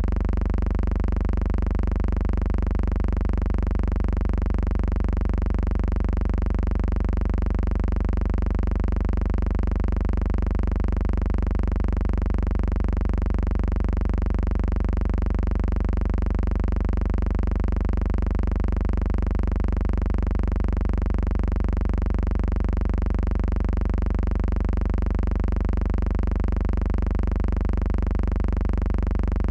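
Steady, unchanging low hum that stays the same throughout, with no rise or fall to follow the aircraft seen.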